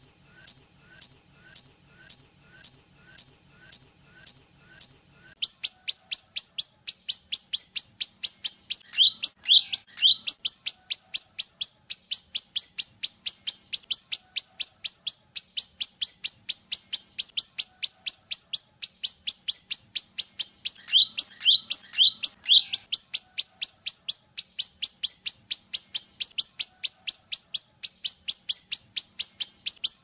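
Rio-rio bird song: at first evenly spaced, high, down-slurred whistles about twice a second, then from about five seconds in a fast, unbroken run of sharp, high chirps, broken twice by a brief lower chatter.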